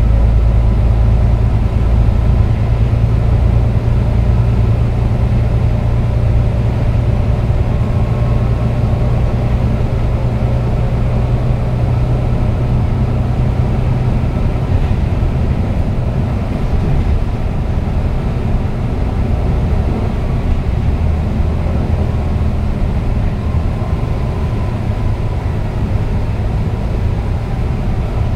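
Volvo B9TL double-decker bus running at cruising speed on an expressway, heard from inside the cabin: a steady engine drone and road rumble with a faint steady whine. The low drone eases somewhat about halfway through.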